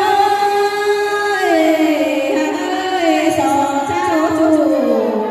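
Female voice singing a Tai (Thái) folk song into a microphone, amplified over a PA. It holds long notes that slide down in pitch, sinking lower near the end.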